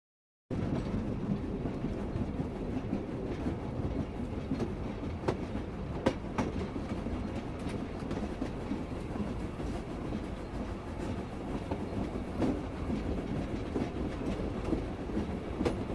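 Train carriage running on rails: a steady low rumble with a few sharp clicks of the wheels over rail joints. It starts about half a second in after a short silent gap.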